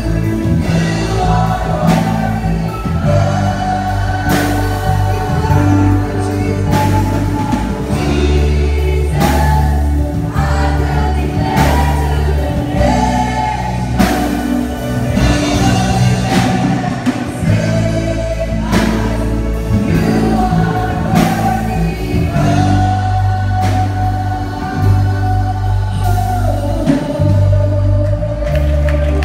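A women's group singing a gospel worship song together, led by one amplified voice on a microphone, over accompaniment with a bass line and a steady beat.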